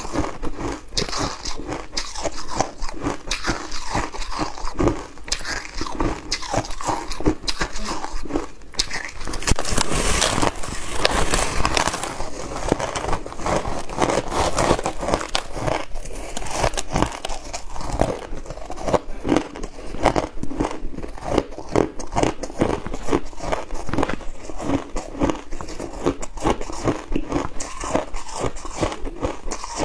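Compacted crushed ice being bitten and chewed: a dense, continuous run of sharp crackling crunches, loudest and thickest about ten seconds in.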